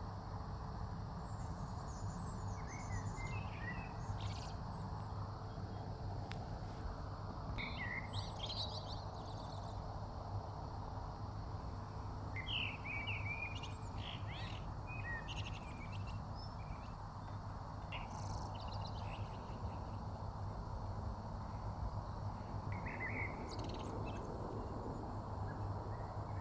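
Birds chirping in short scattered calls, a few clusters of quick notes several seconds apart, over a steady low background hum of outdoor noise.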